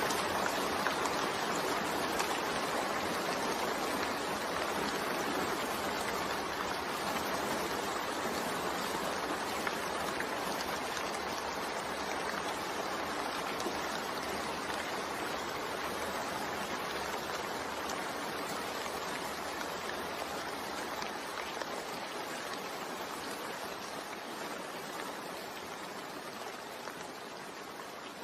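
Steady, even rain with no thunder, slowly getting quieter over the stretch.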